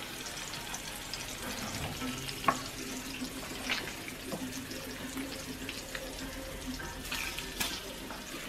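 Bacon and a fried egg sizzling in a frying pan: a steady hiss with scattered crackles of hot fat, and a spatula scraping and clicking against the pan, the sharpest click about two and a half seconds in.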